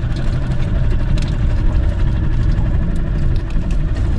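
An engine running steadily at a constant speed, with a heavy low rumble.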